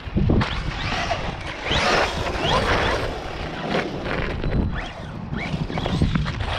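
Team Associated Rival MT10 RC monster truck driving over loose dirt: its electric motor whines, rising and falling in pitch several times as the throttle is worked, over the noise of the tyres on the ground.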